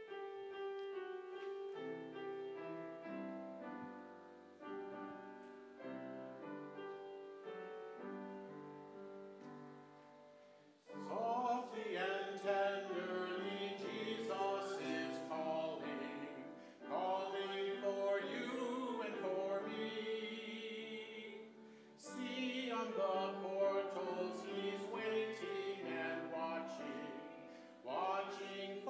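Piano playing a hymn introduction, then the congregation singing the hymn with the piano accompanying from about a third of the way in. The singing pauses briefly between lines.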